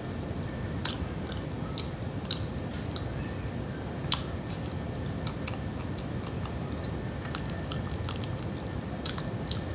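Close-up mouth sounds of a person chewing banana: irregular wet clicks and smacks, several a second at times, over a steady low background noise.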